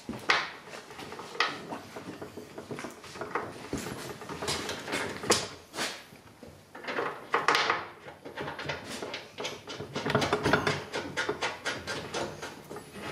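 Hand tools clinking and knocking against the steel auger housing and bearing of a Kubota BX snowblower as the auger shaft bearing is fastened, with a run of quick clicks about ten seconds in.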